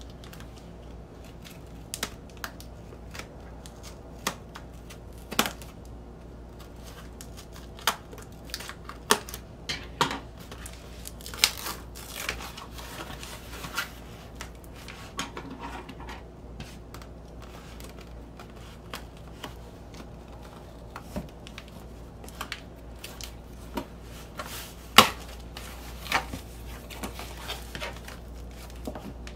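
Tape being pulled and torn off a cardboard record mailer, with scattered short rips, crinkles and taps of cardboard. A sharp snap near the end is the loudest.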